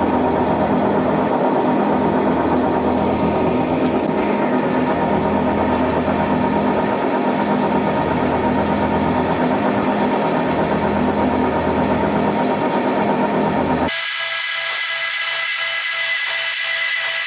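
Metal lathe running steadily while turning a taper on a metal bar between centres, a dense machine noise with a steady hum of tones from the gearing and spindle. About fourteen seconds in, the sound changes abruptly to a thinner, higher whine with a faint regular pulse.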